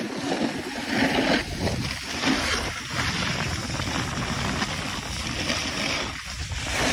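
Wind rushing over a phone's microphone, mixed with the steady scrape of a snowboard sliding over hard-packed snow during a downhill run.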